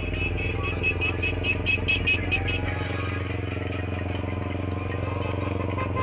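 Motorcycle engine running steadily as the bike rides slowly alongside traffic. A quick run of short, evenly spaced high-pitched sounds comes in over the first couple of seconds.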